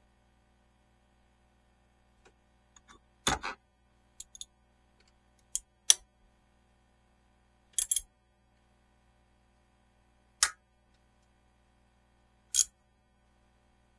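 Scattered sharp clicks and light knocks, about nine in all at irregular intervals, the loudest about six seconds in, as of hand tools and engine parts being handled during a spark plug change.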